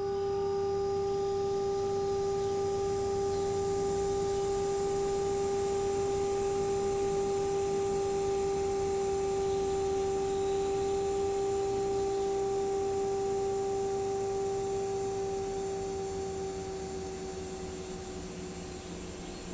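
One long, steady electronic tone with faint overtones, the held closing note of the soundtrack music. It fades out over the last few seconds, sagging slightly in pitch as it goes.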